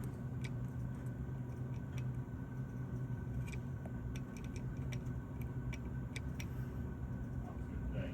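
Steady low machine hum with a faint high tone over it, broken by a dozen or so light, sharp clicks and ticks at irregular intervals.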